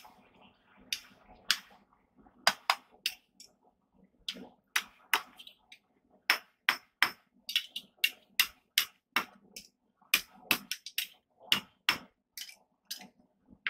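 Hand hammer striking a hot steel bar on an anvil, a long run of uneven blows, about three a second, starting about a second in.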